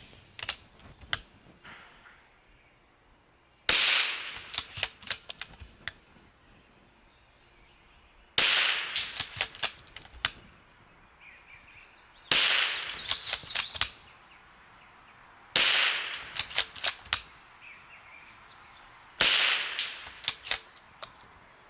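Five rifle shots of CCI Standard Velocity .22 LR rimfire ammunition, about four seconds apart, each followed by a quick run of metallic clicks as the bolt is worked to chamber the next round.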